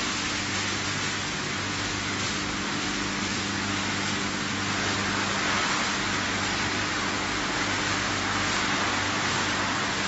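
PET bottle washing and recycling line machinery running: a steady dense hiss with a low, even electric hum beneath it.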